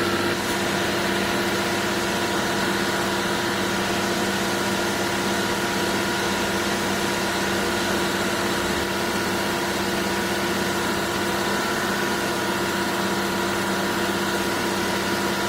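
Concrete pump truck's diesel engine running steadily: a constant hum with a steady higher whine over it.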